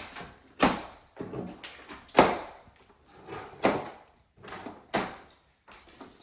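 A run of scraping and rustling handling noises, about six separate strokes that each start suddenly and fade, typical of a large TV's cardboard box and packing being opened and pulled apart.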